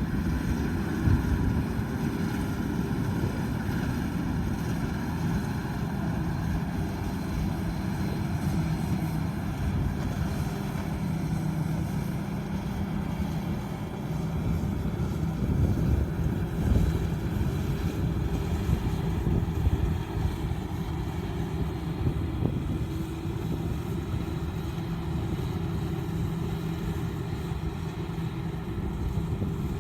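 Combine harvester running steadily at work, a continuous low engine drone.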